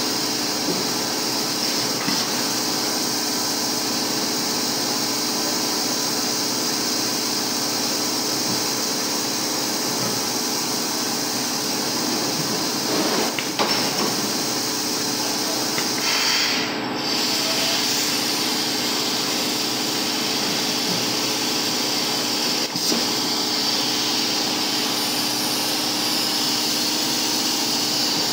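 Double-head automatic blow moulding machine running: a steady mechanical hum and hiss, with two sharp clacks, one about halfway through and one near the end, and a short change in the air hiss a little after the middle.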